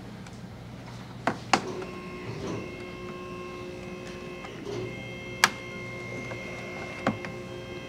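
Sharp plastic clicks as a mesh radiator screen and its grommets are pressed into a C8 Corvette's front grille opening: a quick pair of clicks early, then single clicks about halfway and near the end, over a steady hum with faint steady tones.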